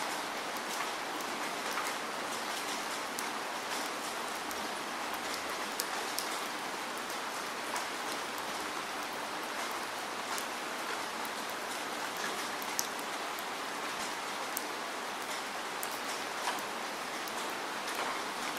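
Steady rain falling, with many separate sharp drop hits heard over the even hiss of the downpour.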